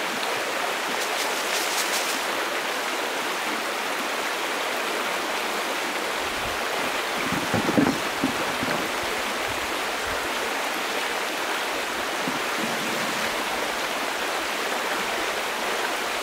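River water rushing steadily, with a brief thump about halfway through.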